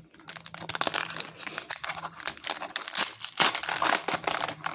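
Foil wrapper of a Pokémon Sword and Shield booster pack crinkling and crackling as it is handled and torn open, loudest about three and a half seconds in.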